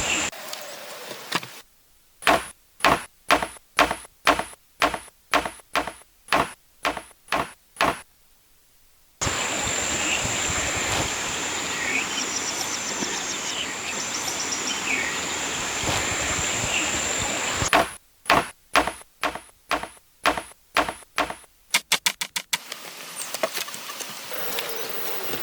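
Woodworking blows struck in a steady rhythm, about two a second, in two runs: a dozen or so near the start and about eight more later. Between the runs is steady outdoor background noise with a few bird chirps. After the second run comes a quick rattle of clicks.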